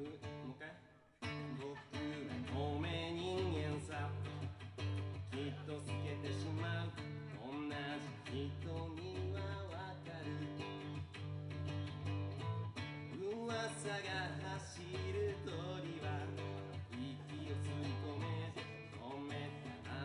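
Live band music led by a semi-acoustic guitar over a steady bass line, with melodic lines moving above it. The music drops out briefly about a second in, then comes straight back in.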